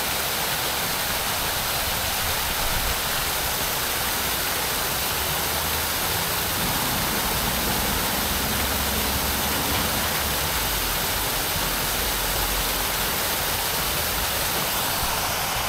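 Steady rushing and splashing of water from a small waterfall.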